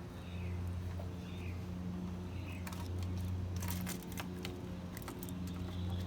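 Steady low motor hum, with a few short high chirps like small bird calls in the first couple of seconds and a brief patch of clicking and rattling about four seconds in.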